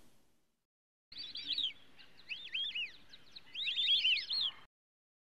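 Bird song: three runs of quick, high, arched chirps, starting about a second in and cutting off suddenly.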